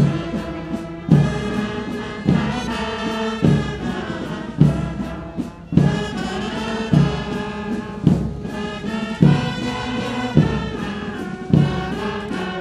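Brass band playing a slow march, its horns holding sustained notes over a bass drum struck evenly a little less than once a second.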